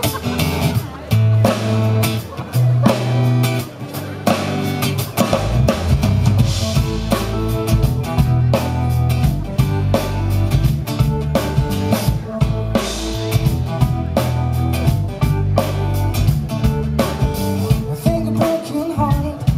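Live band playing an instrumental passage on acoustic guitar, electric bass guitar and drum kit, with the bass growing fuller about five seconds in.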